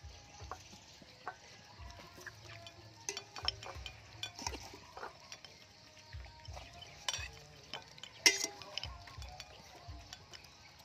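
Puppies and chickens eating rice off a plate: irregular clicks and taps on the dish as beaks peck and mouths chew, with one sharper clack about three quarters of the way through.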